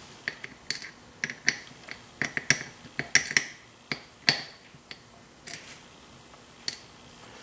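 Quick, irregular run of small sharp metal clicks and ticks, thinning out after about five seconds: the key pins of an ASSA Twin lock cylinder being dumped out of the plug and clicking as they drop and land.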